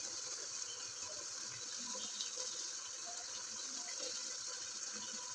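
Steady quiet hiss of a pot of masala cooking on a lit gas burner.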